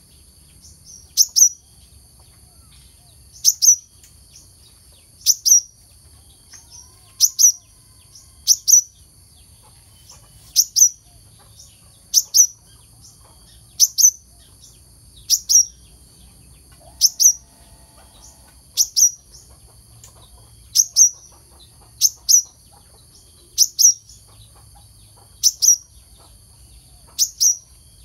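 Brown-throated sunbird repeating sharp, high chirps, mostly in quick pairs, about every two seconds, over a steady high hiss.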